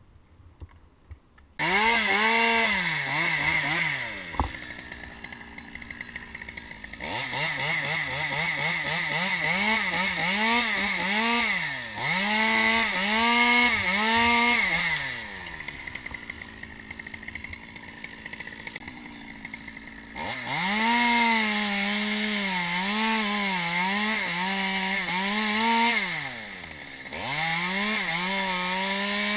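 Small top-handle chainsaw cutting pine limbs: after a quiet first second or two it is run at full throttle in several long spells, its pitch wavering and dipping as the chain bites. Between spells it drops back to idle. One sharp click comes about four seconds in.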